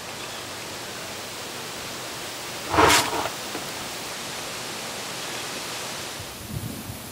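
An 18650 lithium-ion laptop cell in thermal runaway ruptures inside a burn bag: one loud, sharp pop about three seconds in, over a steady hiss.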